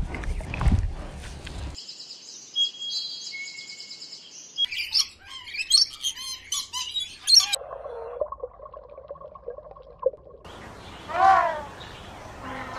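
A string of spliced animal sound clips. A low rumble opens it. From about two seconds in come high chirps and tweets, then a quick run of sweeping chirps. A lower, steadier call follows, and a few rising-and-falling cries come near the end.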